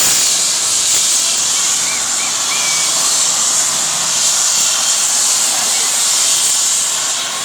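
Helicopter close by with its turbine running and rotor wash, heard as a loud, steady hiss.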